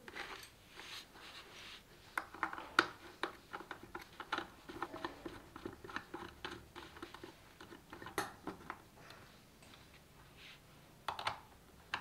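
Small plastic GoPro mount parts being handled and fitted together on a helmet mount: scattered light clicks, taps and rattles of hard plastic, with a screw being pushed through.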